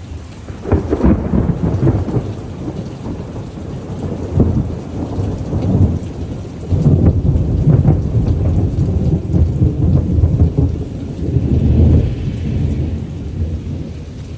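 Thunderstorm: heavy rain with a long, low rumble that swells about a second in and comes and goes in waves.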